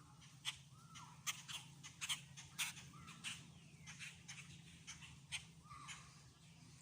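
Songbirds calling: a string of sharp, irregular chip notes mixed with short arched whistled notes, over a steady low hum.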